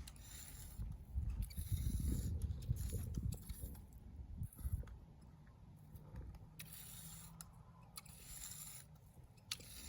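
Irregular scraping and rustling of yard work among dry weeds, with a low rumble of wind or handling on the microphone; busiest in the first half, then quieter.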